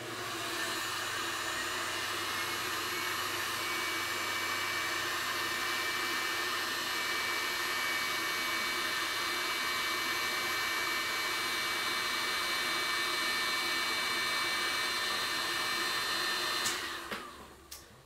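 Blower-type cooling fans of the test load run at full speed as a four-cell LiFePO4 bank is discharged at about 235 amps, giving a steady whir with several steady whining tones. They spin up over the first second and wind down with falling pitch near the end as the load is cut.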